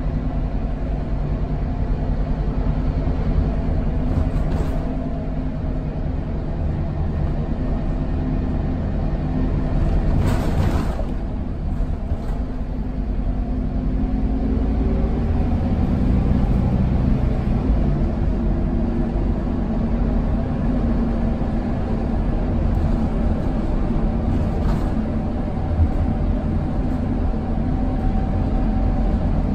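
Scania K280UB bus's 9.3-litre five-cylinder DC9 diesel engine running under way, heard from inside the cabin with road rumble. Its note rises and falls as it pulls through the gears of the ZF EcoLife automatic. A brief hiss comes about ten seconds in.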